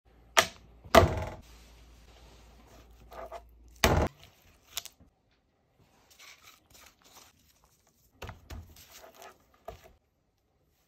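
Food-prep handling sounds: a few sharp knocks and clinks in the first five seconds, the loudest about a second in, then softer scraping and rustling as a dry spice rub is worked on a plate and tipped onto a raw rack of lamb.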